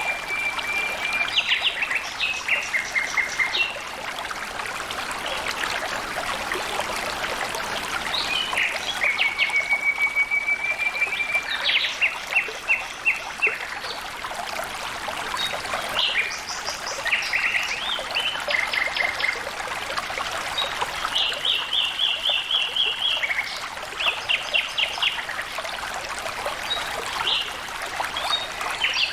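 Water flowing and trickling steadily, with birds calling throughout in quick runs of short repeated notes.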